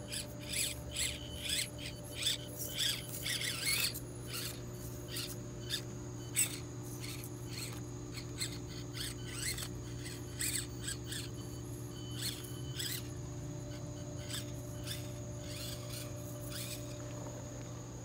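Axial SCX24 RC crawler's small electric motor and gearbox whining steadily, with scattered sharp ticks and clicks as it crawls over rock and bark. The clicks are thickest in the first four seconds and sparser after.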